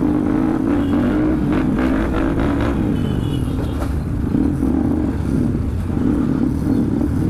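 Motorcycle engine running steadily while riding, its note wavering slightly, over a low road rumble.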